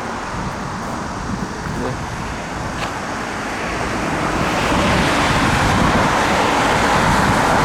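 Road traffic noise, a steady rush of passing vehicles that grows louder about halfway through.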